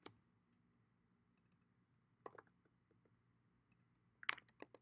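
Computer keyboard keys tapped in near silence: a couple of taps about halfway through, then a quick run of about five keystrokes near the end.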